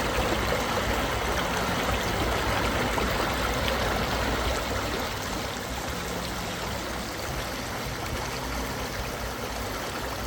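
Steady rush of running water, like a stream.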